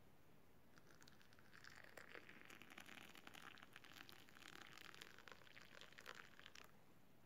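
Faint crinkling and rustling of plastic packaging being handled, a dense run of small crackles starting about a second in and stopping shortly before the end.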